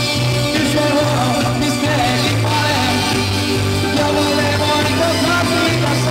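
Live band playing loud amplified music, with a voice singing over electric guitar and a bass line that moves from note to note about every half second.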